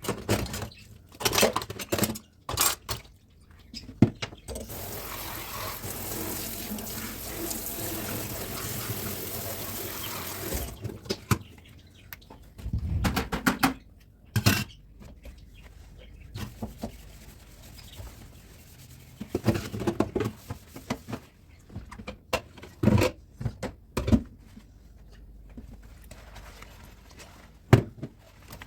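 Kitchen dishwashing at a sink: clinks and knocks of dishes and cutlery being handled, with the tap running steadily for about six seconds near the start.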